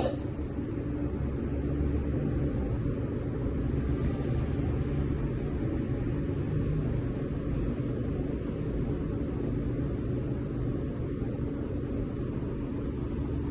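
Shih Tzu snoring in deep sleep: a low, steady rumble with a faint hum.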